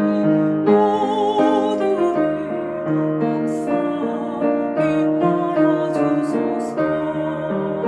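A woman singing the alto part of a choir hymn with vibrato over piano accompaniment.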